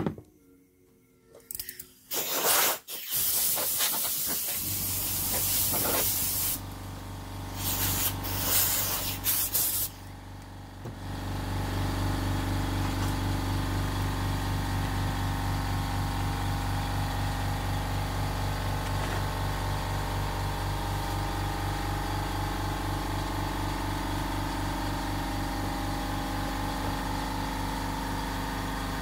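Several bursts of hissing in the first ten seconds, then a machine motor starts about eleven seconds in and runs steadily with a fast, even pulse.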